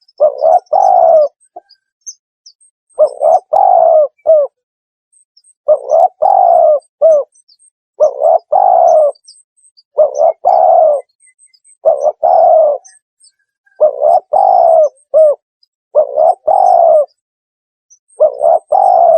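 Spotted dove cooing, played as a recorded decoy call: a short phrase of a few coos repeats about every two seconds, nine times. Faint high chirps sit behind the cooing.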